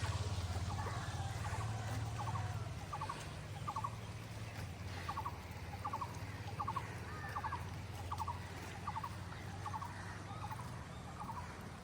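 A bird repeating a short trilled call about once a second, over a steady low hum.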